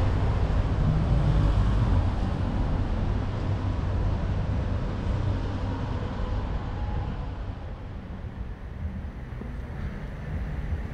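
Low, rumbling outdoor city ambience: wind buffeting the microphone over distant traffic noise, easing off over the first eight seconds or so.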